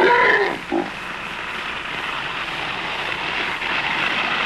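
A short shout, then homemade skateboard wheels, made from the rollers off airdrop supply cases, rolling and rattling down a dirt track, growing steadily louder as the board comes closer.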